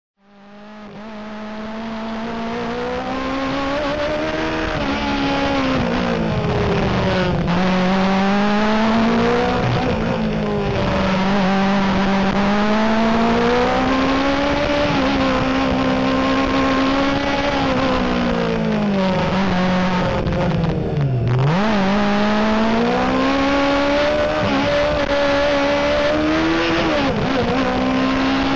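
FS-MAMI Iguana EVO3 Formula Student race car's engine heard on board, fading in over the first few seconds, then revving up and down over and over as the car accelerates and lifts through corners. About three quarters of the way through the revs drop steeply as it slows hard, then climb again.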